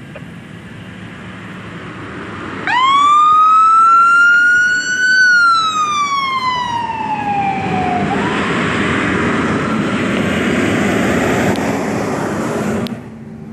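Fire truck siren: one slow wail rising in pitch from about three seconds in, then falling away over several seconds. After that the truck's engine and tyre noise takes over as it passes close, with the siren under it, until the sound drops off suddenly near the end.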